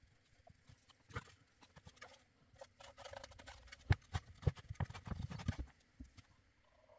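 Small wooden box being handled on a cutting mat: light scraping and rubbing of a glue brush inside it, then a quick run of wooden knocks and taps over about two seconds as the box is turned and pressed down.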